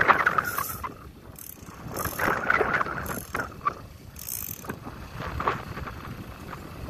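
Choppy sea water sloshing and splashing against a boat's hull, with wind on the microphone, in uneven surges, the strongest right at the start.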